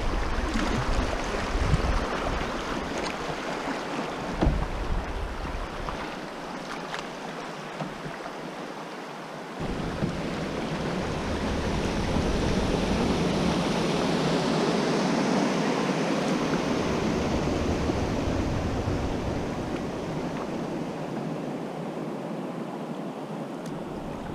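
River water rushing over a shallow gravel riffle around a canoe, with wind buffeting the microphone in low thumps during the first few seconds. About ten seconds in, the rush jumps suddenly louder and fuller.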